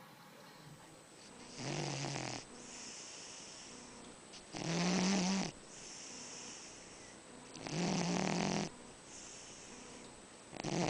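Cat snoring in its sleep: a low-pitched snore about every three seconds, each under a second long, with softer breaths in between. There are three snores, and a fourth begins near the end.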